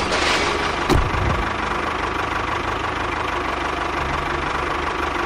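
A small engine running steadily at idle, with a fast, even pulse and one sharp click about a second in.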